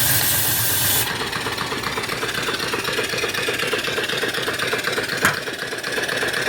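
Steam hissing from the boiler's blower valve, cutting off abruptly about a second in. Then the shop-built 3-inch-bore steam engine running steadily with a fast, even exhaust beat, and one sharp click near the end.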